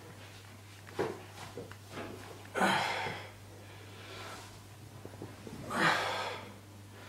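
A man breathing hard under the strain of close-grip barbell bench press reps, with two loud forceful breaths about two and a half and six seconds in. A small click sounds about a second in.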